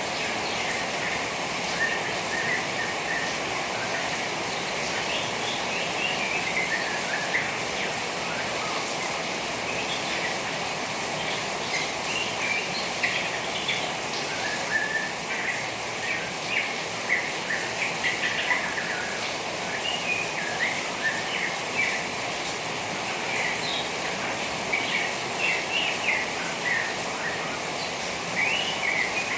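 A juvenile white-rumped shama chattering in quick runs of short chirps over a steady hiss of trickling rainwater, the chirps coming thicker in the second half.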